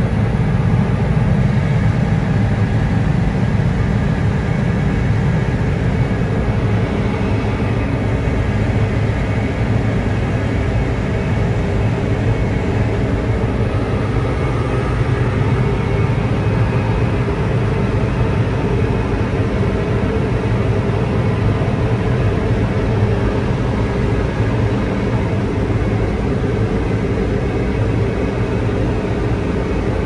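Steady drone of a John Deere CP690 cotton picker, heard from inside its cab as it harvests down the rows: engine and picking heads running together under load.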